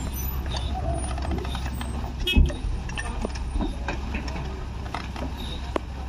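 Heavily loaded sand truck's diesel engine running low and steady as it creeps up the loading ramp onto a ferry, with a heavy thump about two and a half seconds in.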